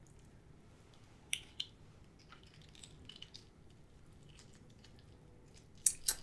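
Shellfish shell being cracked and picked apart by hand: two sharp cracks about a second and a half in, small crackles after them, then a cluster of louder cracks near the end.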